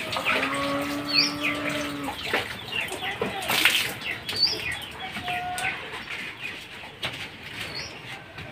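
Farmyard sounds: chickens clucking, a long steady animal call in the first two seconds, and short high bird chirps every few seconds. A brief sharp clatter of metal kitchenware comes a little over three seconds in.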